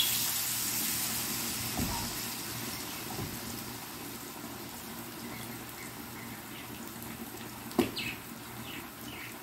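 Battered nan pakora (bread in gram-flour batter) going into hot oil in a frying pan: a loud sizzle that starts suddenly and eases over a few seconds into a steady sizzle. A sharp knock sounds once, near the end.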